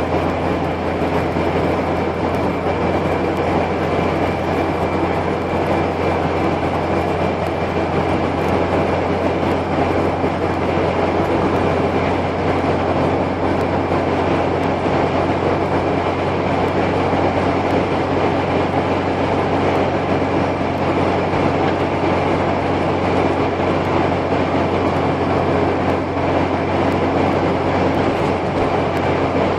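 Car engine and road noise heard inside the cabin while driving at a steady speed: a constant low drone over an even tyre rumble, with no change in engine speed.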